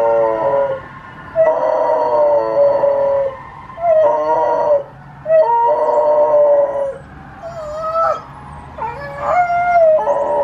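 Dog, a Rhodesian Ridgeback, hound and Rottweiler cross, howling in a series of long howls with short breaks between them, the last few shorter and wavering in pitch. The howling is set off by a passing fire engine.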